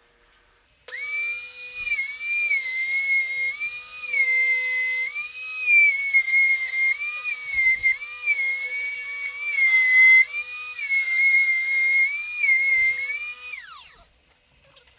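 Electric wood router switched on and running at a high whine, its pitch dipping again and again as the bit bites into the wood, then switched off and spinning down with a falling whine near the end.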